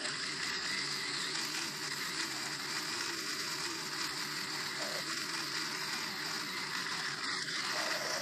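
Stihl FS90R string trimmer's engine running steadily, with the hiss of its whirling line cutting through thick grass.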